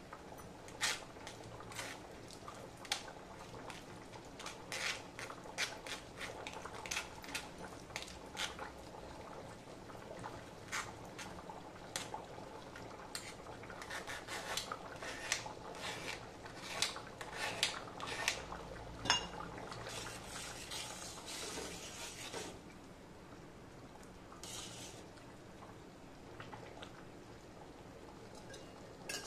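A steel spoon scraping and tapping against a stainless steel mesh strainer while pressing wet tamarind pulp through it, in many irregular clicks and scrapes. The clatter stops about two-thirds through, leaving a quieter stretch with one short scrape.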